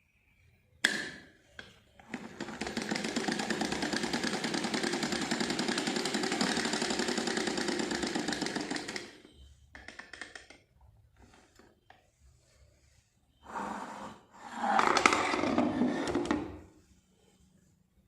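Household sewing machine run for about seven seconds with a fast, even clatter, after a sharp click, then run again in two short spells near the end. It is being tested to see whether it now turns freely after its handle setting was corrected.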